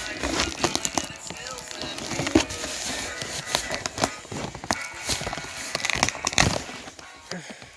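Packaging being handled: irregular crinkling, rustling and sharp clicks.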